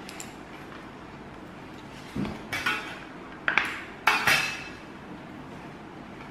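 Metal bench scraper knocking and clinking against the work surface while cutting dough: about five short, sharp strikes with a brief metallic ring, between about two and four and a half seconds in.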